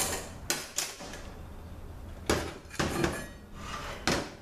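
A series of sharp metal knocks and clinks, the loudest just past halfway, as a transmission's input clutch drum is handled on a metal workbench and its stack of steel and friction clutch plates is pulled out.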